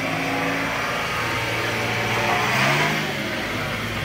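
A vehicle engine running steadily, its pitch rising briefly about two and a half seconds in.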